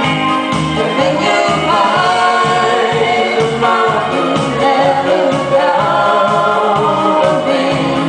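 A man and a woman singing a duet into microphones over amplified backing music with a steady bass beat.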